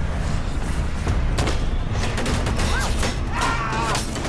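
Bursts of rapid gunfire over the steady low drone of a truck engine driving hard, with shots clustered about a second and a half in and again near the end.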